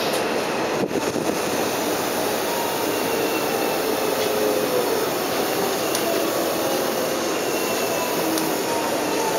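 Running noise of a Hanshin 5700 series electric train heard from inside the car as it nears a station: a steady rumble and rush with faint wavering tones. Its permanent-magnet synchronous motors are very quiet, so the motor sound barely stands out.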